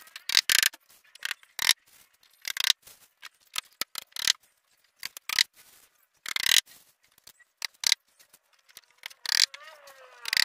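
Irregular sharp clicks, knocks and scrapes of a thin plywood sheet being bent and pressed around a round plywood frame.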